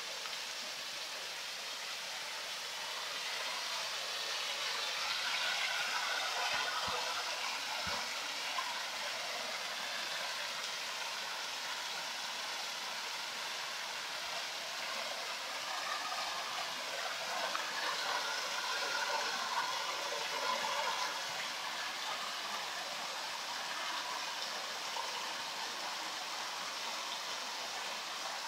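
Water pouring through a sluice opening in a mill weir, a steady rushing splash.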